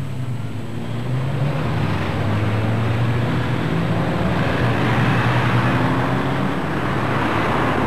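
City street traffic: several cars driving off along the road, a steady engine hum under tyre and traffic noise that swells toward the middle and eases near the end.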